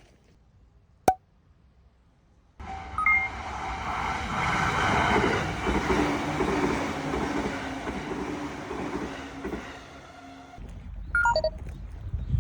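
A train passing over a level crossing: after a faint stretch with one sharp click, loud rolling rail noise starts abruptly about two and a half seconds in and runs for about eight seconds, dropping back near the end.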